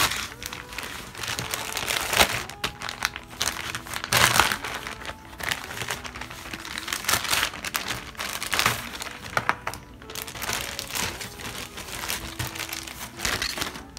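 Clear plastic zip-lock bag crinkling as the ice-cube-tray palette of gouache paints inside it is handled, in irregular bursts with a few louder crackles.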